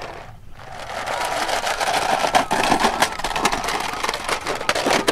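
Toy truck being pushed along, its plastic wheels rolling and rattling with many small clicks and knocks.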